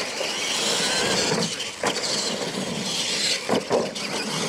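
Two radio-controlled monster trucks racing across a dirt track: a steady whirring of their motors and gears with tyre noise, and a few sharp knocks about two seconds in and again near the end.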